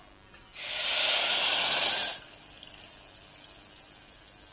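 A cup of water poured into a hot pressure cooker of freshly roasted broken wheat and moong dal, giving a loud splashing hiss for under two seconds. After it, a faint trickle as the steel measuring cup is refilled from a jug.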